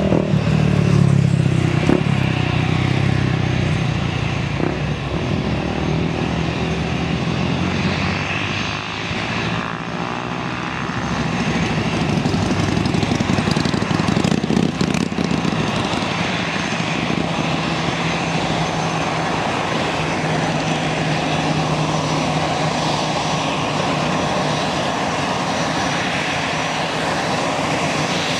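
Airbus A321 jet engines running steadily at low thrust while the airliner taxis, a loud rumble with a faint high whine; the noise dips briefly and then swells about halfway through.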